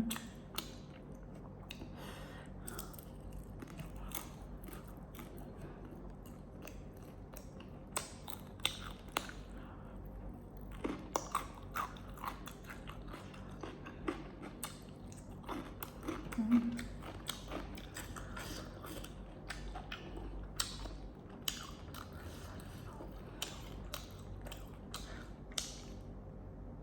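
Close-up eating sounds: chewing and biting, with many short wet clicks and occasional crunches. A short hummed voice sound comes about two-thirds of the way through.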